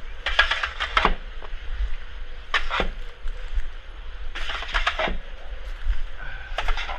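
Four crunching scrapes in packed snow, about two seconds apart, with a steady low rumble of blizzard wind buffeting the microphone underneath.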